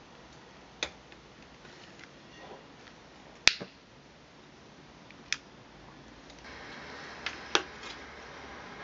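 Several sharp clicks, the loudest about three and a half seconds in, as a lighter is worked over the burner of an Optimus Svea 123 white gas stove. About six and a half seconds in, the burner catches and settles into a steady hiss: the primed stove is now burning vaporised white gas.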